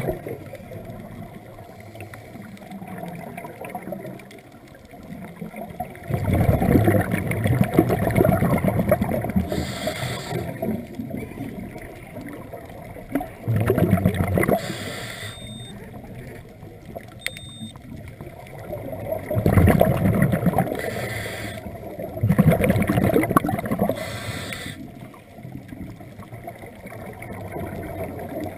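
A scuba diver breathing through a regulator, heard underwater. Several bubbling, gurgling exhalations, each lasting a second or more, alternate with short hisses of inhalation through the regulator.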